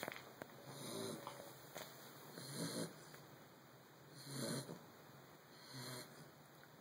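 Snoring: a slow, even run of snores, about four in a few seconds, one every one and a half to two seconds.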